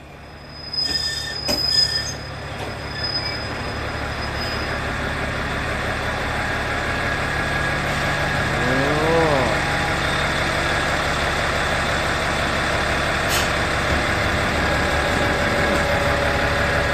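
Tenryu Hamanako Railroad TH2100 single-car diesel railcar pulling in alongside the platform. A few sharp clicks and a high squeal come about a second in, then the engine and running gear grow steadily louder as the car rolls past.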